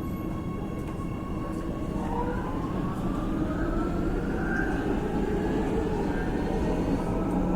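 Subway train running: a steady low rumble with a rising whine that begins about two seconds in, growing slightly louder.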